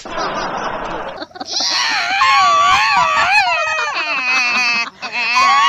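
High, wavering screams or wails, several overlapping, their pitch swooping up and down, starting about a second in after a burst of hiss-like noise; near the end a stuttering cry that falls in pitch.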